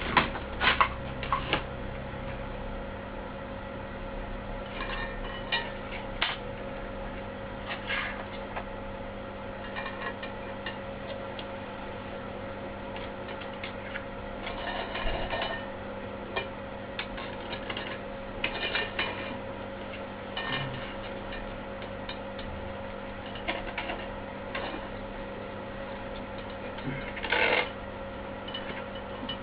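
Scattered clicks, taps and a few short scraping sounds of handwork, over a steady electrical hum. The clicks are thickest in the first couple of seconds, and the longest scraping bursts come near the middle and shortly before the end.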